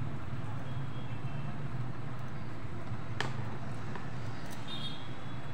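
Steady low rumble of a gas stove burner under a pot of water heating on a lowered flame, with one sharp click about three seconds in.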